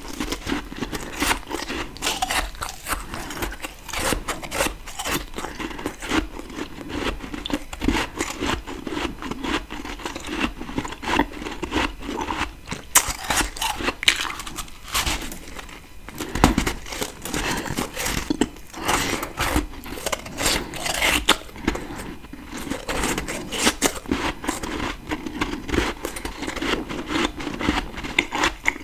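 Close-miked chewing and biting of humidifier-grown freezer frost: a dense, irregular run of crisp crunches with no pause.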